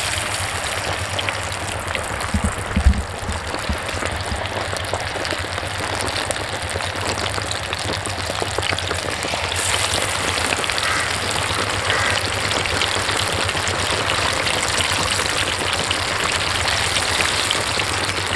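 Coated fish piece deep-frying in hot oil in a large iron karahi: a steady, dense sizzle and crackle of bubbling oil, growing a little louder about ten seconds in, with a couple of low thumps about three seconds in. This is the first, half-frying stage.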